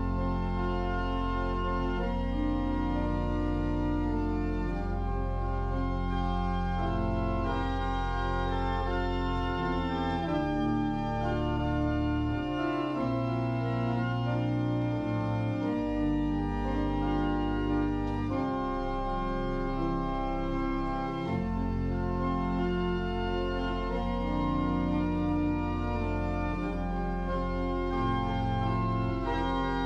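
Organ music: slow, sustained chords held for a few seconds each, at a steady level.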